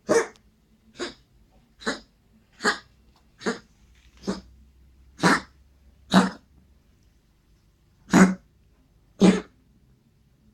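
A pet coughing in a fit, short sharp coughs about once a second, ten in all, with a pause of about two seconds after the seventh.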